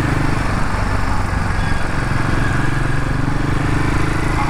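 Royal Enfield Himalayan 450's single-cylinder engine running steadily while the bike is ridden.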